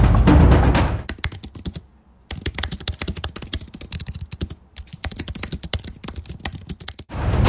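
Fast typing on a computer keyboard, a quick run of key clicks with two short pauses. Loud intro music plays for about the first second and comes back in near the end.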